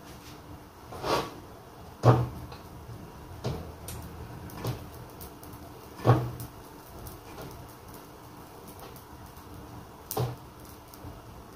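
Scattered knocks and clatters of kitchen handling, about six over the stretch, the sharpest about two and six seconds in, over a faint steady room hum.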